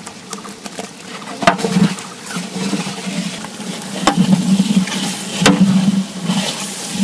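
A long-handled metal ladle stirring raw meat and pulses in a large metal cooking cauldron, scraping through the mix, with three sharp knocks of the ladle against the pot.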